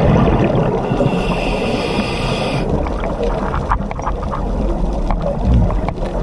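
A scuba diver's regulator breathing underwater, heard through the camera housing. There is a hissing inhalation from about one to two and a half seconds in, then rumbling exhaled bubbles, with a few scattered clicks.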